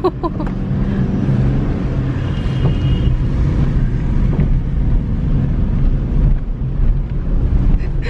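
Car engine running with steady tyre and road rumble, heard from inside the cabin while driving.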